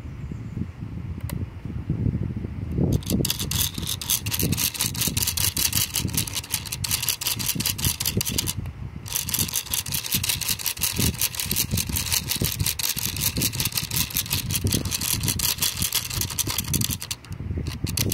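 Small electric fan in a homemade toy exhaust-fan housing whirring with a fast, even buzz. It starts about three seconds in and cuts out briefly twice, near the middle and near the end. Low rumbling and knocks from handling sit underneath.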